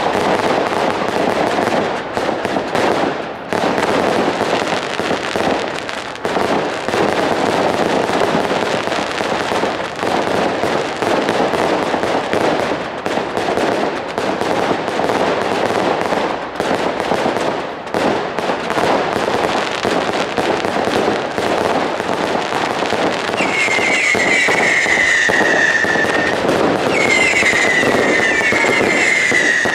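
Consumer fireworks going off in a continuous barrage: a dense stream of bangs and crackling from rapid-fire cakes. From about three-quarters of the way through, repeated high whistles that fall slightly in pitch join in.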